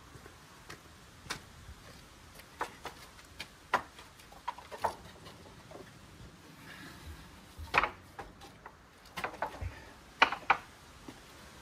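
Scattered light clicks and knocks at irregular intervals, a few sharper ones about two thirds of the way through and near the end: tools and a bracket-marking jig being handled against a stone wall, with no drill running.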